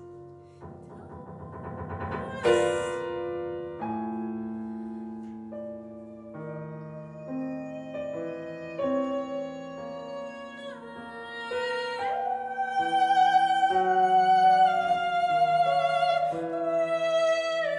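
Soprano and grand piano performing a contemporary art song: the piano plays held notes with a sudden loud attack about two and a half seconds in. About twelve seconds in, the soprano sings one long note with vibrato that slowly sinks in pitch over the piano.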